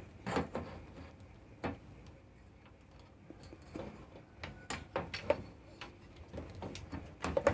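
Irregular light clicks and knocks of a handheld multimeter, clamp meter and test leads being handled and set in place.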